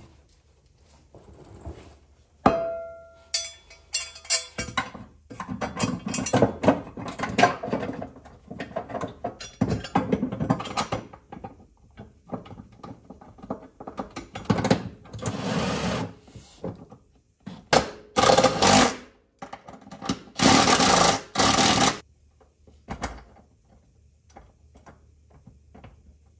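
Tools and metal parts working under a car while a transmission mount is bolted in. A sharp ringing metal clang comes about two and a half seconds in, then stretches of clicking, rattling and clanking, with several louder runs of rattling about halfway through and later.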